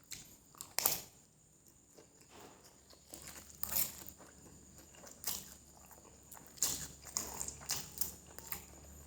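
Close-miked eating sounds: wet chewing and lip smacks of someone eating fried noodles, a handful of short clicks spread over several seconds.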